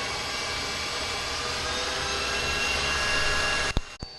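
Electric stand mixer running at medium-high speed, a steady motor whine with a low rumble, whipping eggs and sugar until thick and glossy. Near the end it stops abruptly with a click and the sound drops to a faint hum.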